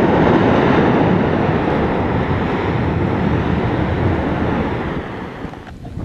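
Ash eruption from the vent of Mount Yasur, a strombolian volcano: a loud, steady rushing noise of the ash column jetting out, fading about five seconds in.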